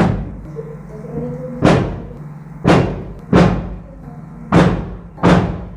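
Sharp slapping strikes, six of them at uneven intervals of about a second, each dying away quickly, over a steady low hum.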